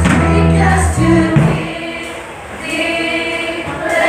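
Mixed church choir of men and women singing a worship song with band accompaniment. A held low instrumental note stops about a second in, leaving mostly voices, which soften briefly and then swell again.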